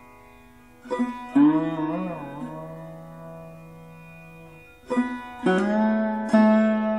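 Background instrumental music: plucked string notes that ring on, with a sliding bend in pitch about two seconds in, in an Indian classical style.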